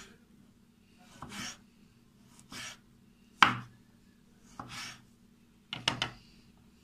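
Kitchen knife slicing sucuk (Turkish sausage) on a wooden cutting board: about six unhurried cuts, each a short rasp of the blade through the sausage ending on the board. The sharpest knock of blade on wood comes about three and a half seconds in, with a quick double knock near the end.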